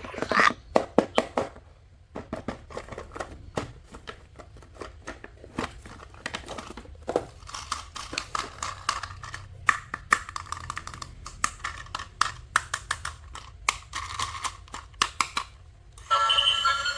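Irregular crinkling and clicking as toy packaging is handled and opened, with scattered sharp snaps. Music starts abruptly near the end.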